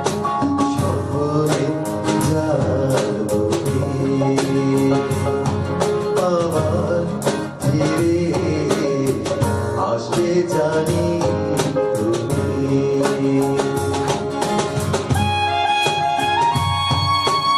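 A Bengali song: a singer's voice over instrumental backing with a steady beat.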